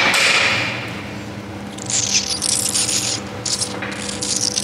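Hoof knife paring the horn of a cow's hoof: a rasping scrape at the start, another about two seconds in, then a couple of shorter ones.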